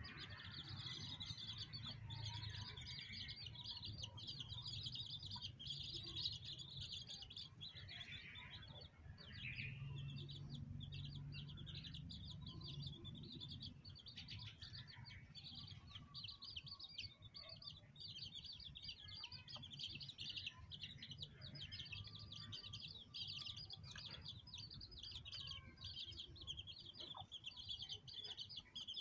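Newly hatched chicks peeping without pause, a dense chorus of quick high cheeps. Underneath, the brooding hen's low clucking, strongest around ten to thirteen seconds in.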